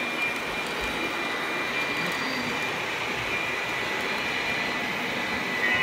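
Model train rolling along its track, picked up close on the moving train: a steady whir of wheels and motor with a thin, steady high whine.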